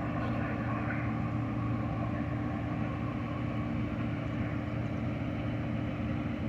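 Amtrak passenger train passing: a steady rumble with a constant low drone.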